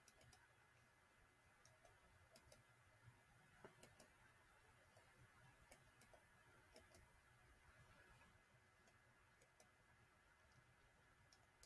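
Near silence: faint room hum with scattered soft clicks of a computer mouse.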